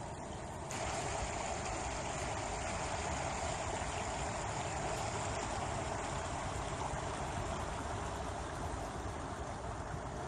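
Steady outdoor rushing noise without distinct events, growing a little louder and brighter about a second in.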